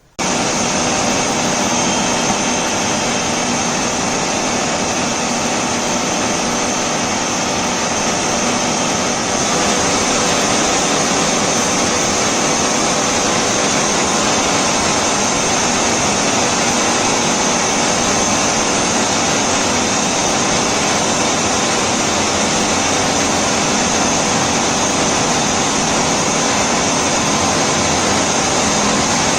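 Usha FP 3811 food processor's 1000 W motor running with the kneading blade, working wheat flour and water into chapati dough: a loud, steady whir with a high whine. It switches on abruptly and gets a little louder about ten seconds in.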